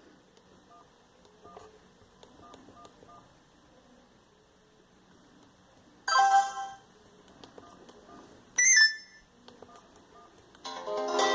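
Sony Ericsson Z310i mobile phone sounding short electronic tones: faint beeps at first, then three loud brief bursts of ringtone melody, about 6 s in, about 8.6 s in, and near the end.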